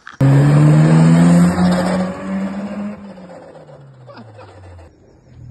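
A car engine accelerating hard close by, loud at first, its note rising for about two seconds, then falling and fading as the car drives off down the road.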